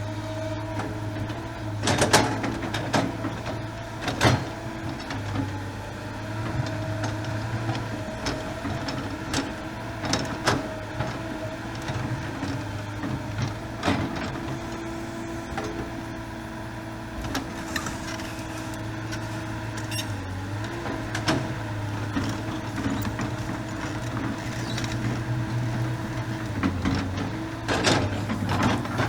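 Diesel engine of a Kobelco SK250 LC excavator running steadily under work, with several sharp metallic clanks and knocks as the machine digs.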